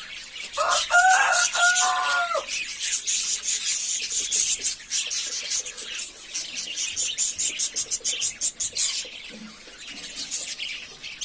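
Flock of budgies chattering and chirping rapidly, a dense warble that thins out near the end. A lower, drawn-out call in two parts sounds over it about a second in.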